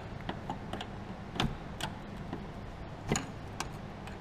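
Irregular light metallic clicks and taps of a hand tool on the brake hose fittings as they are tightened, with a few louder clicks about a second and a half in and again about three seconds in.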